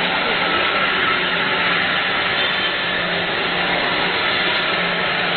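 Tilting scraping cooking kettle running while stirring corn paste: a steady rushing machine noise with a faint low hum underneath.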